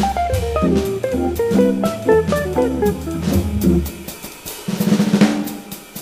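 Organ jazz group with drum kit: a quick run of single notes over low bass notes with the drums, then the drums alone for the last seconds.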